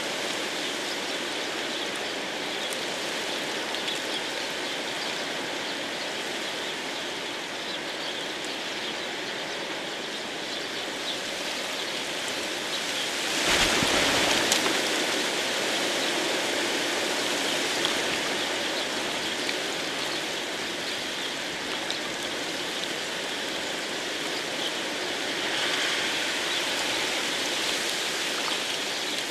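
Steady rain falling, an even hiss of water with scattered drops, swelling louder for a moment about halfway through.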